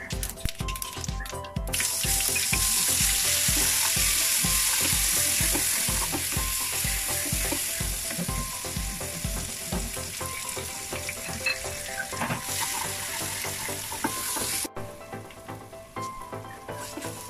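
Chopped aromatics with red chilli go into hot oil in a frying pan about two seconds in and sizzle loudly while stirred with a wooden spatula; the sizzle drops suddenly near the end. Background music with a steady beat plays throughout.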